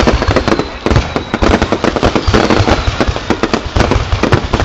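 Fireworks going off in rapid, continuous succession: dense overlapping bangs and crackles, many per second.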